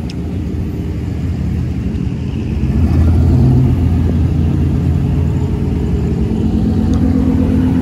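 Pickup truck engines running as trucks drive slowly past one after another, with a deep steady hum that grows louder about three seconds in as a closer engine passes.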